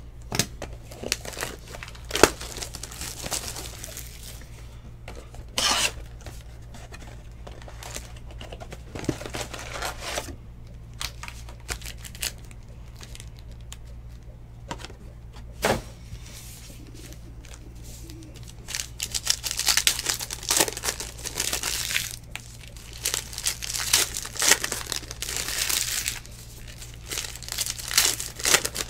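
Hands tearing and crinkling the plastic wrapping of a Panini Legacy football card box and its packs. Scattered rips and rustles come at first, growing busy and continuous through the second half.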